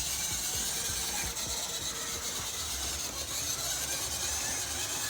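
Life-Like GP38 model locomotive running along the track: a steady whir from its small electric motor and gears, with the rolling noise of its wheels on the rails.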